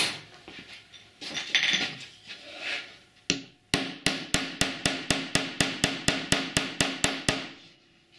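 Small hammer tapping bolt heads into a plywood worktop, knocking them below the surface so they lock in place. One knock at the start, some handling rustle, then a quick even run of about fifteen taps, roughly four a second, that stops near the end.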